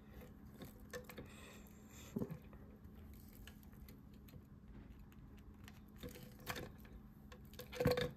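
Faint scattered clicks and taps of jumper wires being handled and pushed into a plastic breadboard, with a louder click near the end.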